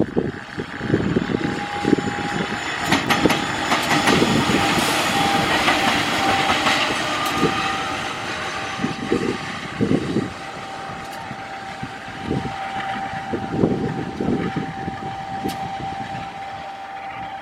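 Train rolling through the station, its wheels knocking over the rail joints at uneven intervals under a steady high tone that holds throughout.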